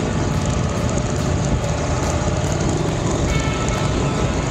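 Honda Africa Twin's parallel-twin engine running under way on a dirt trail, mixed with steady wind and tyre noise on the camera microphone.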